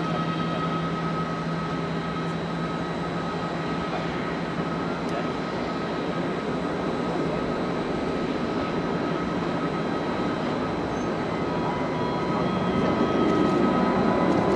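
Boeing 787-9 jet engines at takeoff power during the takeoff roll: a steady rushing jet noise with a thin high whine, growing louder over the last couple of seconds as the airliner nears.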